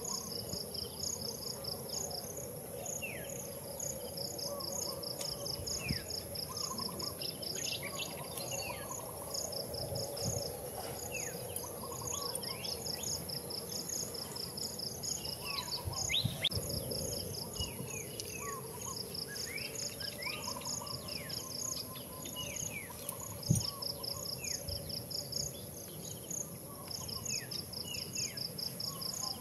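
Insects chirping in trains of regular high pulses that stop and start, over a steady high insect whine, with birds giving many short falling chirps.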